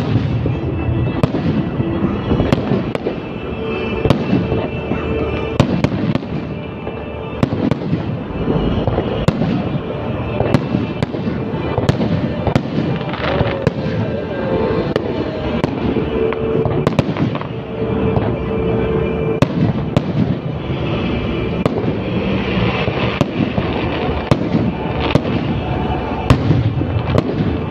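Fireworks display: shells bursting in quick succession, bang after bang with crackling, with music playing underneath.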